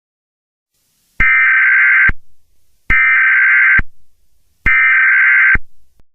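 Three bursts of Emergency Alert System (SAME) digital data tones, each a harsh, buzzy warble lasting about a second, starting and stopping abruptly with short silent gaps between.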